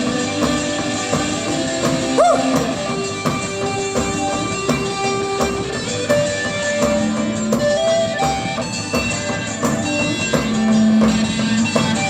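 Live rock band playing an instrumental passage: guitar over a drum kit keeping a steady beat, with one note bending up and back down about two seconds in.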